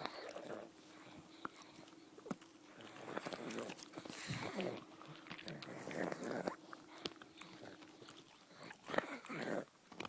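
A dog making odd noises: an irregular run of sharp clicks and short noisy bursts, like chewing or smacking.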